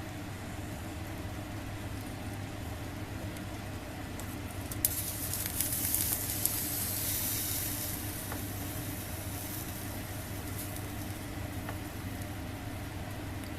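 Food sizzling on a wire grill net over a small solid-fuel fire. A click about five seconds in sets off a hiss that swells and fades over about three seconds, over a steady low hum.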